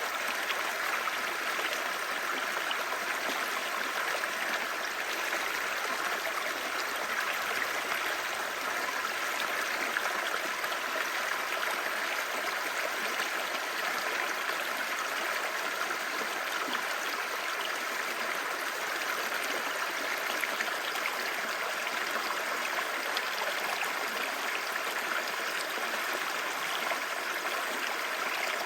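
Clear mountain stream babbling steadily over rocks: an even rush of flowing water.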